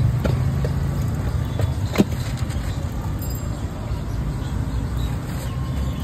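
Steady low rumble of street traffic, with a single sharp click about two seconds in.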